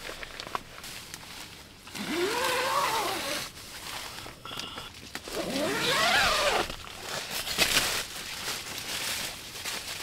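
A dog whining twice, each a long cry that rises and then falls in pitch, the first about two seconds in and the second about five and a half seconds in.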